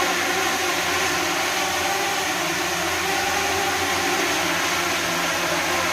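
Steady rushing air from two electric fans blowing on a hovering DJI Mini 2 drone, the fans' blast and the drone's propeller whir blended into one even noise with a low steady hum under it.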